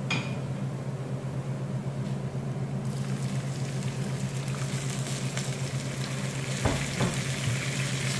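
Water poured into a pan of hot oil and fried onions, setting off a sizzle about three seconds in that carries on. A wooden spatula stirs the pan near the end, over a steady low hum.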